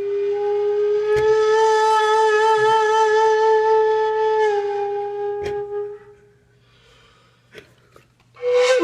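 A long held, steady wailing note with a slight wobble, rising a little about a second in. It stops about six seconds in, leaving a few short clicks, and starts again just before the end.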